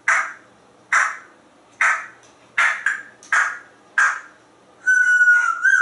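African grey parrot giving a run of seven short, harsh, caw-like squawks about a second apart, then a long steady whistle starting near the end.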